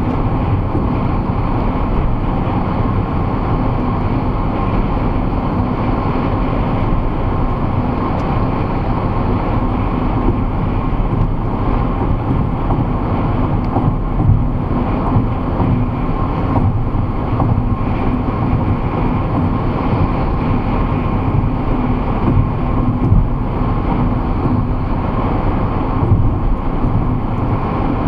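Steady in-cabin road noise of a car cruising at motorway speed: tyre rumble and engine drone with a faint steady hum, picked up by a dashboard camera's built-in microphone.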